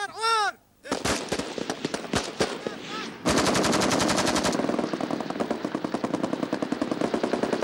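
Kalashnikov-type assault rifles firing on a range. Scattered single shots come first, then about three seconds in there is a dense stretch of rapid automatic fire. It carries on as a quick, steady string of shots.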